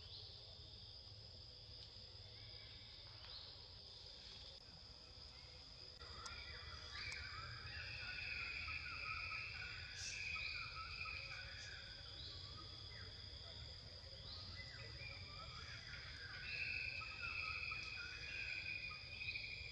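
Insects chirring steadily in high, even tones, joined about six seconds in by a louder chorus of calls with short rising notes every couple of seconds.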